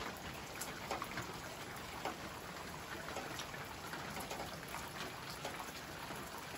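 Steady rain falling, a constant hiss with scattered louder drops ticking now and then.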